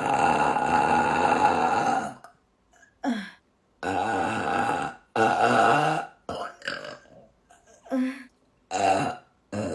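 A woman burping deeply, over and over: one long burp of about two seconds to open, then a string of shorter burps with short silent gaps between them.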